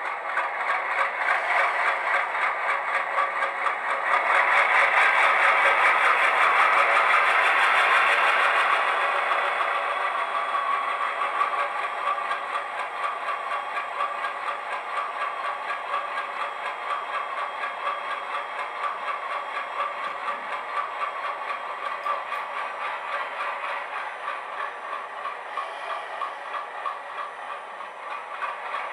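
Digital sound decoder's ALCO diesel prime-mover sound from an HO-scale Bowser ALCO C-628 model locomotive, played through a Scale Sound Systems high-bass speaker, running with a fast rhythmic throb. It grows louder about four seconds in, then eases off after about nine seconds.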